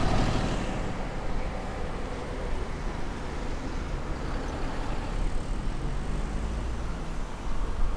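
Road traffic noise: steady rumble of car engines and tyres in slow city traffic, a little louder at first and again near the end.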